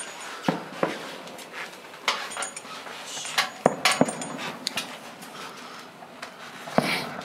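Fireworks going off: several sharp bangs at irregular intervals, with a pair of bangs about halfway through.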